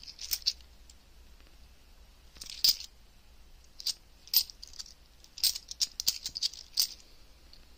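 British 50p coins clinking against each other as they are thumbed off a stack held in the hand: about a dozen sharp metallic clicks at uneven intervals, a few of them louder.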